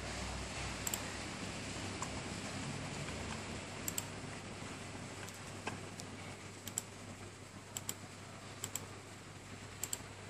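Computer mouse buttons clicking while navigating menus: sharp clicks at irregular intervals, several in quick pairs, over a steady low hum.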